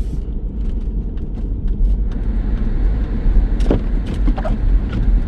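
Subaru driving on a snow-covered road, heard from inside the cabin: a steady low rumble of engine and tyres. A couple of brief clicks sound near the end.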